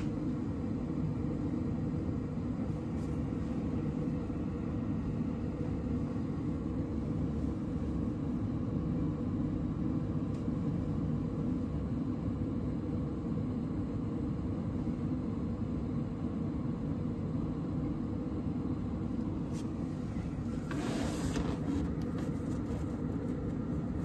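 Combustion fan of a Potterton Kingfisher MF gas boiler running steadily with a low hum, a boiler fan fault where the fan runs while the air pressure switch has yet to prove airflow for ignition. A brief rustle comes near the end.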